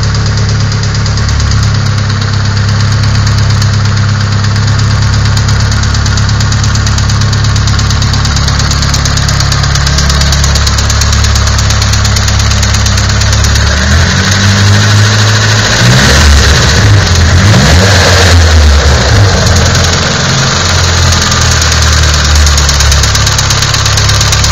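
Nissan SR20DET turbocharged 2.0-litre four-cylinder engine idling with a knocking sound. About halfway through, the revs rise and fall a few times for several seconds, then settle back to idle.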